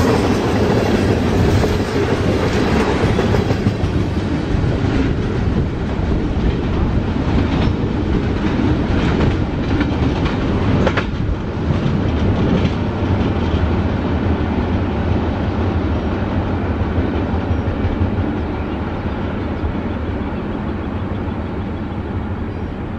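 Manifest freight train of tank cars and flatcars passing fast, wheels clicking over the rail joints under a steady rumble that eases a little near the end.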